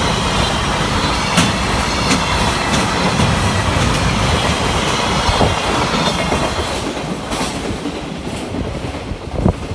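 Freight wagons of a passing JR Freight train rumbling over the track, with the clatter of wheels over rail joints. The sound starts to fade about seven seconds in as the end of the train goes by.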